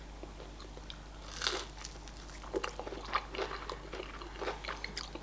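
A person crunching and chewing a crispy breaded fried chicken wing, in irregular crunches with a louder bite about a second and a half in.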